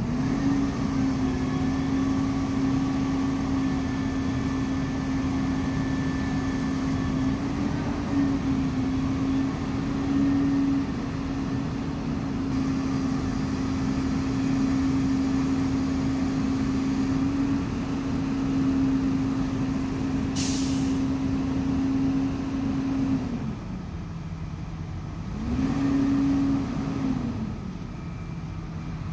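Utility truck engine held at a raised, steady speed, running the hydraulic boom. Near the end it drops back to idle, revs up briefly once more and settles to idle again. A short sharp hiss comes about two-thirds of the way through.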